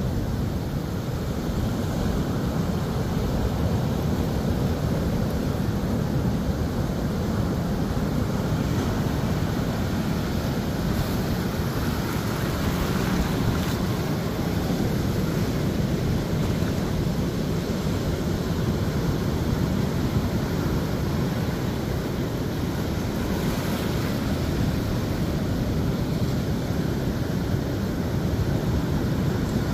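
Ocean surf washing up a beach: breaking waves and foam rushing in as a steady wash of noise, with a couple of slightly louder surges. Wind buffets the microphone.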